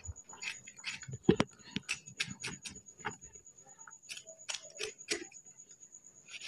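Kitchen knife chopping vegetables on a plastic plate, first tomato and then green bell pepper: a run of irregular sharp clicks as the blade strikes the plate, the loudest about a second in.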